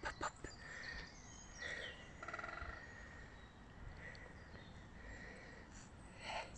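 Quiet woodland ambience with small birds chirping and calling, including a short rapid trill about two and a half seconds in. A few soft rustles right at the start.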